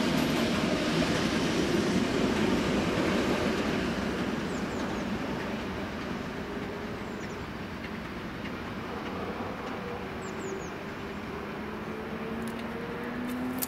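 A lone locomotive running away past the crossing, its engine and wheel noise loudest at first and fading over several seconds. Near the end there is a faint, slowly rising whine.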